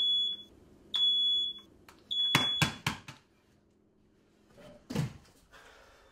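Smoke alarm sounding high beeps about once a second. About two seconds in the beeping breaks off in a loud clatter and rattle as the alarm is handled, and a single thump follows near the end.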